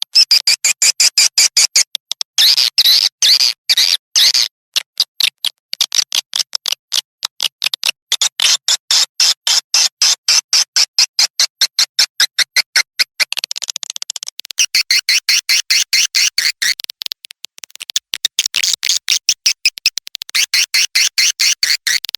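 Swiftlet lure recording ('suara panggil') of edible-nest swiftlets: a continuous stream of rapid, high chirps, several a second, in runs with brief breaks. The recording changes character about two-thirds through, then the chirping continues.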